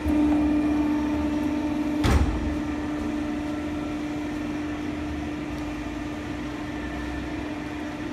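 Hydraulic bone-pressing machine starting a press cycle from its foot pedal: the hydraulic pump comes on with a steady hum and whine under load. A single sharp clunk from the press comes about two seconds in, and the pump then runs on steadily.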